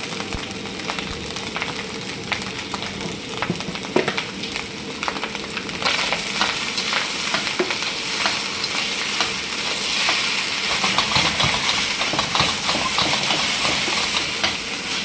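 Food sizzling in hot oil in a pan while a utensil stirs it, with scraping clicks. The sizzle gets louder about six seconds in.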